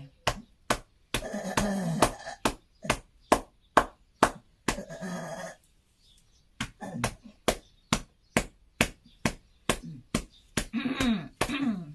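Hand pats on an elderly person's back for chest percussion, in a steady run of about two or three sharp slaps a second with a brief pause a little past the middle. The patting loosens phlegm from a cough that the patient cannot bring up.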